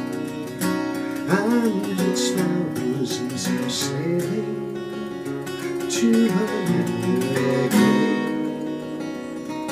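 Steel-string acoustic guitar played solo, plucked and strummed chords, as the closing instrumental of a folk song.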